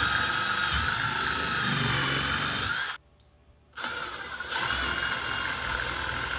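Milwaukee M18 FUEL cordless impact driver spinning an 1/8-inch drill bit into a cabinet door, its motor whining steadily as it drills a handle hole. It stops about three seconds in, then starts up again under a second later on the next hole.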